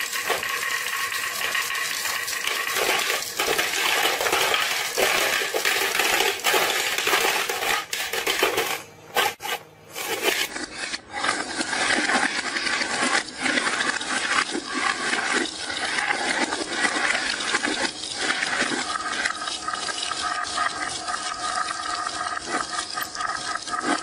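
Glass marbles rolling and clattering down a wooden marble-run slope and dropping into a plastic toy fishing game: a dense, continuous rattle of small clicks, briefly broken a little before the middle.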